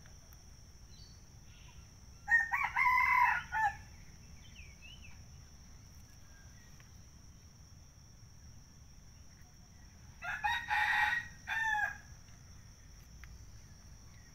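A rooster crowing twice, about two seconds in and again about ten seconds in. Each crow is a drawn-out call that drops in pitch at the end.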